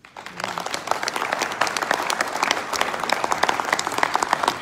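Audience applauding: many hands clapping at once, starting suddenly and filling in fully within the first second, then holding steady.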